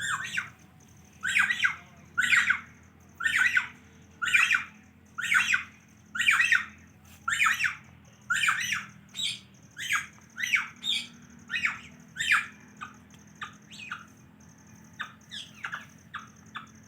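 Indian ringneck parrot giving a long series of harsh squawks, about one a second. From about twelve seconds in the calls grow shorter and weaker.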